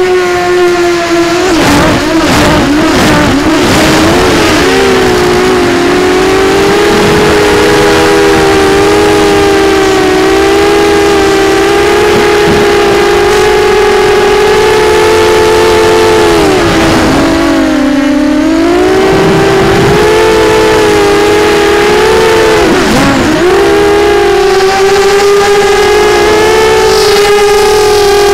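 Homemade quadcopter's Sunnysky 2204 2300 kV brushless motors spinning Gemfan 6045 props, a loud, steady multi-tone whine heard from the onboard camera. The pitch wavers about two seconds in, then dips sharply and climbs back twice in the later part as the motors slow and spin up again.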